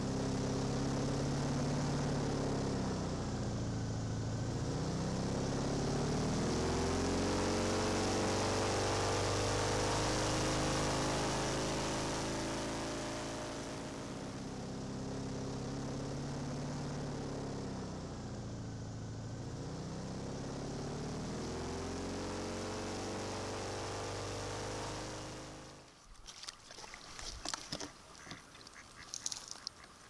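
Airboat engine and propeller running, the pitch dropping and climbing back twice as the throttle is eased off and opened again. It cuts off near the end, leaving faint scattered clicks and rustles.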